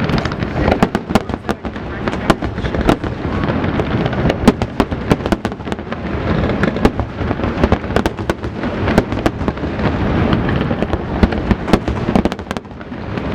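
Fireworks display going off in a dense, rapid run of sharp bangs and crackles over a continuous rumble, several a second, easing briefly near the end.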